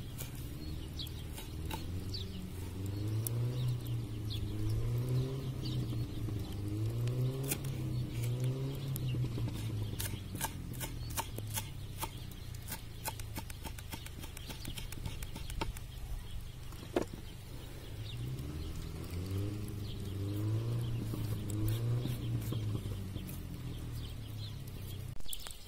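Kitchen knife chopping fresh herbs on a wooden cutting board: quick, irregular taps. Behind it a low droning sound rises and falls in pitch for several seconds at a time, dies away about ten seconds in and comes back after about eighteen seconds.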